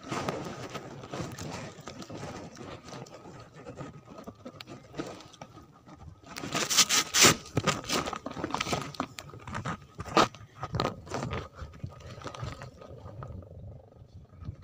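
Handling noise close to the microphone: irregular scraping and rubbing as hands work fishing line and tackle, with a louder run of scrapes about six to eight seconds in.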